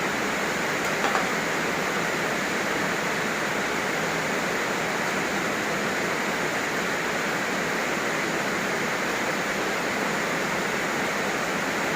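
Heavy rain falling steadily, an even continuous hiss, with a small click about a second in.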